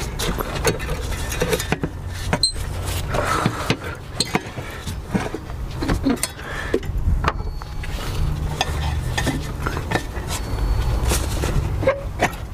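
Hand tools and metal engine parts clinking and knocking in irregular short taps during reassembly, over a low steady rumble.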